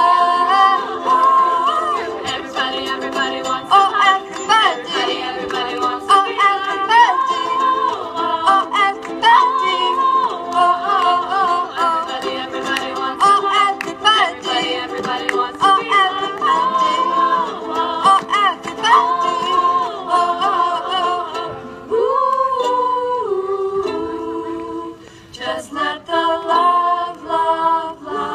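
A ukulele ensemble strumming while the group sings in unison and harmony. About three-quarters of the way through, the music thins out and drops in level for a few seconds before picking up again.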